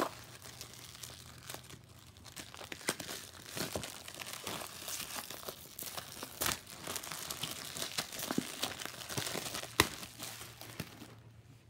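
Clear plastic shrink-wrap being torn and peeled off a box by hand, crinkling and crackling, with one sharp crack near the end.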